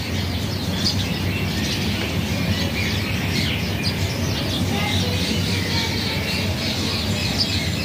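Many birds chirping and squawking continuously, short overlapping calls, over a steady low hum.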